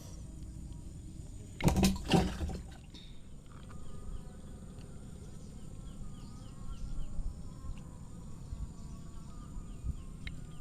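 Two loud, brief knocks or rustles of handling about two seconds in, then quiet outdoor ambience with faint, repeated short chirps of insects or birds.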